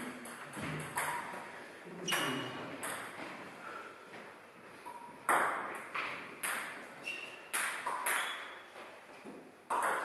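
Table tennis rally in doubles: the ball clicking off bats and bouncing on the table, a few scattered clicks at first, then a regular exchange of about two hits a second from about five seconds in, each with a short ring of hall echo.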